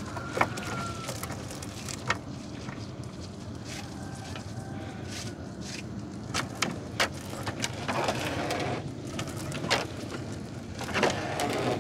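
Wet gill net being hauled by hand over the side of a wooden boat: scattered knocks and brief rustles and splashes of mesh, floats and water against the hull, over a steady low hum.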